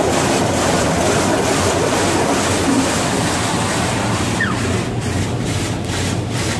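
Water jets of a touchless automatic car wash spraying the car, heard from inside the cabin as a loud, steady rush. The spray wavers in strength during the last couple of seconds as the jets move over the car.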